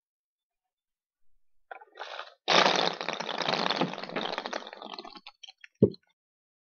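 A bucketful of about 144 golf balls dumped out at once, clattering and bouncing on an asphalt driveway: a sudden dense rattle that thins over about three seconds into scattered single bounces. A single sharp thump comes near the end.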